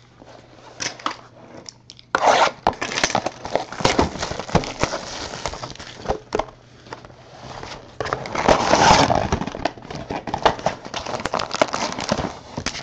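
Plastic wrapping crinkling and tearing as a sealed box of trading cards is opened. The crackling starts about two seconds in and is loudest a little past the middle.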